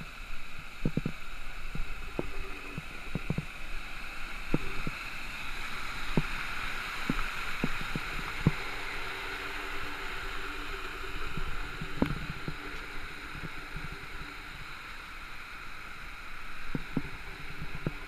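Waterfall and stream water rushing steadily over rocks, with scattered short knocks and taps throughout.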